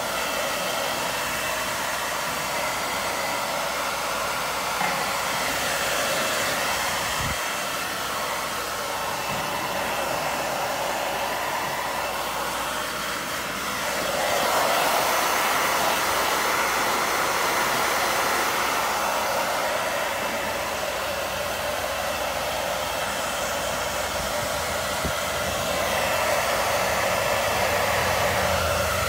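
Hand-held hair dryer running steadily, blowing on a wet dog's coat; the rushing air gets louder about halfway through and again near the end.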